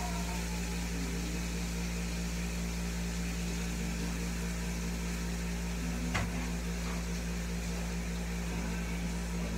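Steady low mechanical hum with a faint hiss, and one sharp click about six seconds in.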